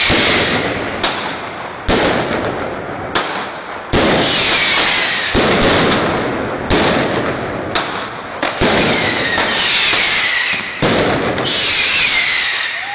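New Year's Eve fireworks and firecrackers going off in quick succession: about a dozen sharp bangs, each trailing off in a long echo, with several falling whistles among them.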